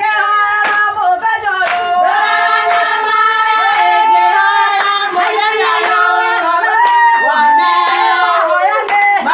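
Several women's voices singing together, holding and sliding notes, with a few sharp hand claps early on.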